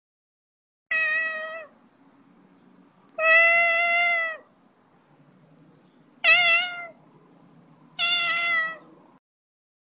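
A domestic cat meowing four times, each meow about a second long and fairly level in pitch, the second the longest. A faint low background hum runs under the calls and cuts off suddenly with the last one.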